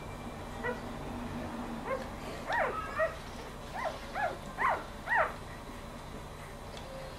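Newborn Golden Retriever puppies squeaking while they nurse: a string of about six short, high calls, each rising and falling in pitch, between about two and a half and five seconds in.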